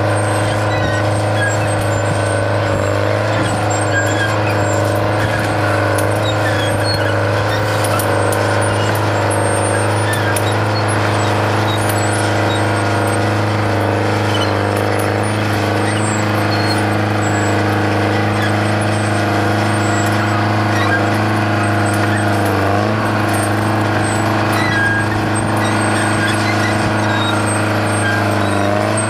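Detroit Diesel 4-71 two-stroke diesel engine of a Bucyrus-Erie 20-H excavator running steadily as the machine digs, its pitch sagging briefly once late on.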